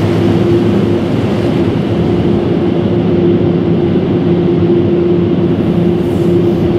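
Automatic car wash equipment running, a loud steady drone with a constant low hum, heard from inside the car.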